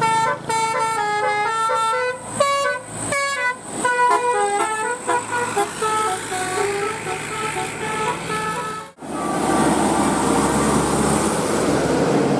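Bus 'telolet' multi-tone musical horn playing a quick tune of short stepping notes, several pitches sounding together. About nine seconds in it breaks off abruptly and a steady rush of vehicle noise takes over.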